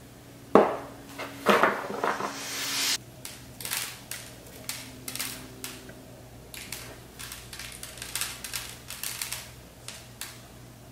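Small hard heart-shaped sprinkles being handled and scattered: two sharp knocks, a rattling hiss that builds and stops abruptly about three seconds in, then many light irregular clicks as the sprinkles land on the tabletop and are pressed into the slime.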